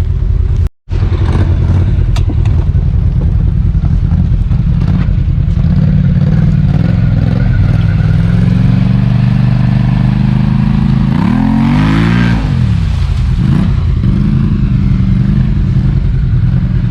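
Off-road vehicle engine running steadily under load on a trail, revving up and back down about twelve seconds in, with a brief cut-out about a second in.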